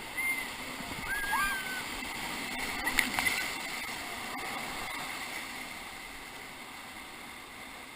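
Whitewater rapids rushing steadily around a raft, with a couple of short shouts from the rafters in the first two seconds and a sharp click about three seconds in.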